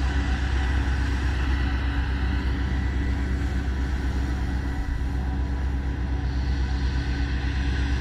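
Steady, unchanging low drone of a running vehicle engine.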